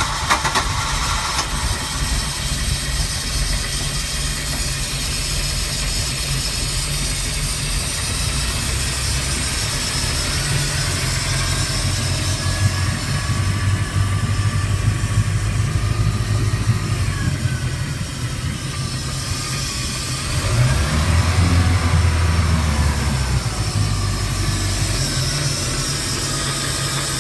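MerCruiser 3.0 four-cylinder petrol sterndrive engine running just after starting, firing unevenly for the first second before settling into a steady idle. About 20 seconds in it is revved up for a few seconds, then drops back.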